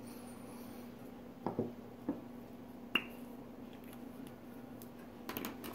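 A few small sharp clicks and knocks as pens and a wooden wand are handled on a wooden table, the sharpest click about three seconds in, with a faint steady hum underneath. Near the end comes a rustling clatter of pens being moved.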